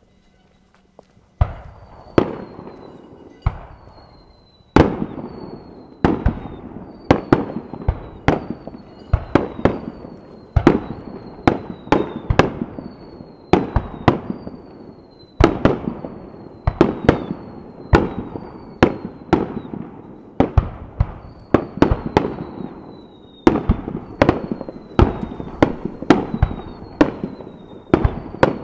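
Japanese aerial firework shells bursting in rapid succession after about a second and a half of quiet: sharp, loud bangs about one to two a second, each trailing off in a rolling echo, with short high whistles falling slightly in pitch between many of them.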